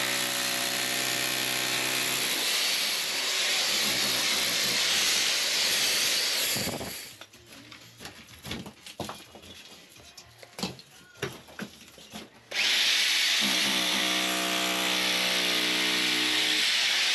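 Hammer drill with a chisel bit breaking out mortar and bricks from a brick-and-block wall, running steadily in two long bursts. In the pause between them, about seven seconds in, loose bricks knock and clatter as they are handled.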